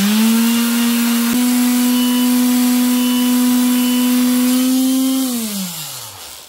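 Lathe motor starting up, running with a steady whine that steps slightly higher about a second in, then winding down and stopping near the end.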